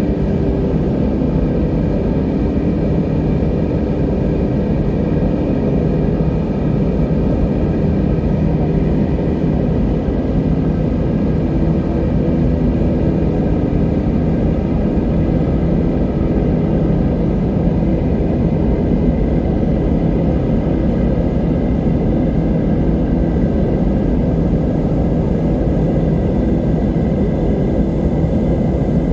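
Ambient drone music: a steady, deep rumbling pad with several long held tones and no beat.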